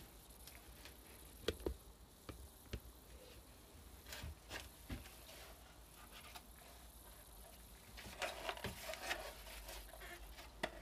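Faint, scattered clicks and light knocks, with a stretch of rustling near the end, from someone moving about and handling parts.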